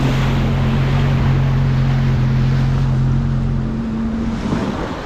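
Sea-Doo jet ski engine running at a steady pitch over water and wind noise. Its tone drops away near the end, leaving the wash of the water and wind on the microphone.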